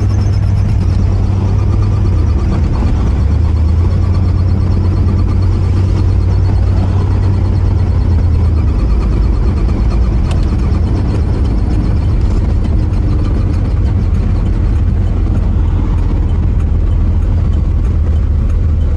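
1973 Cadillac Coupe DeVille's 472 V8 running steadily, with the air-conditioning blower on high.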